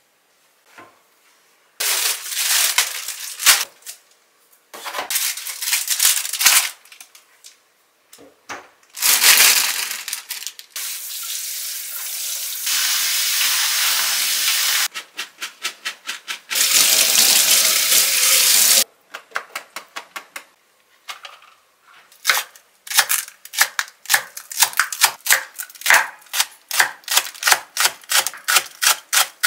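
Tap water running over bean sprouts in a metal strainer as they are rinsed, then a kitchen knife chopping green onions on a wooden cutting board in quick, even strokes, about three a second.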